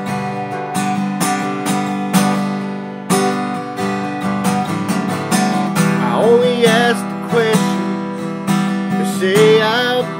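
Acoustic guitar strummed in a steady rhythm. A man's singing voice comes in over it about six seconds in.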